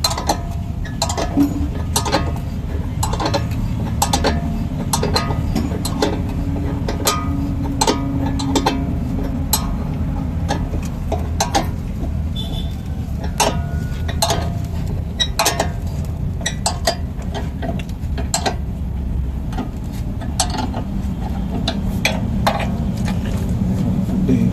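Irregular metal clicks and clinks of hand tools working on a vehicle's shock absorber mounting, over a steady low hum.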